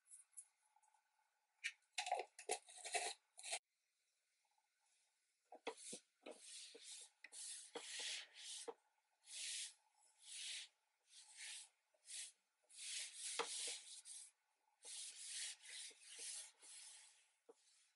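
A hand rubbing and sweeping across a wooden board in separate strokes, roughly one a second, after a short cluster of rustles and taps near the start.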